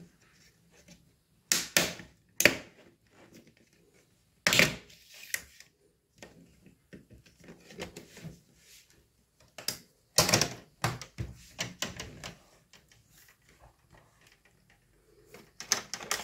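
Plastic snap clips of a Lenovo G50 laptop's screen bezel clicking loose as the bezel is pried off by hand. There are sharp snaps in clusters a few seconds apart, with quieter plastic handling noise between them.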